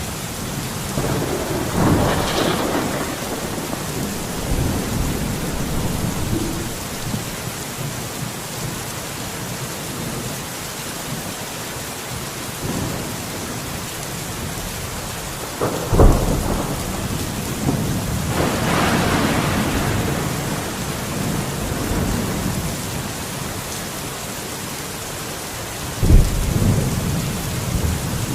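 Steady rain with thunder. A rumble rolls in and fades a couple of seconds in, and again past the middle. Two sharp thunderclaps come suddenly, about two-thirds of the way through and near the end, and are the loudest sounds.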